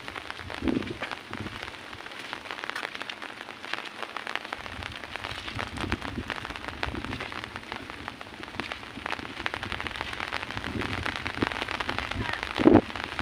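Rain falling steadily, a dense patter of many small drop hits. A short dull thump near the end is the loudest sound, with a fainter one about a second in.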